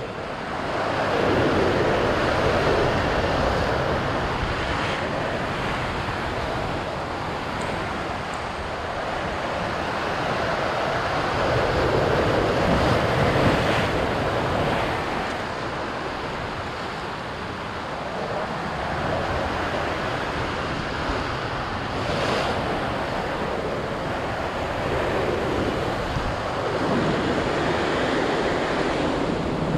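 Ocean surf breaking and washing over a rocky lava shoreline just below, rising and falling in long swells a few seconds apart.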